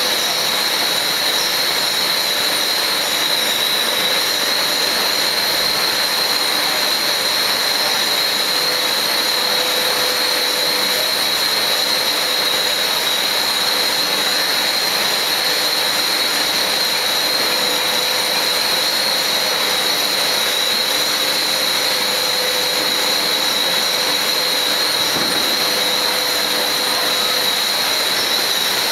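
Billet continuous casting machine running: a steady, loud hissing roar with a constant high whistle over it.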